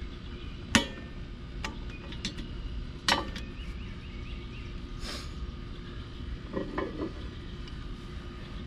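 A few sharp metallic clinks and knocks of hand tools and steel parts, the loudest about a second in and another about three seconds in, over steady outdoor background noise.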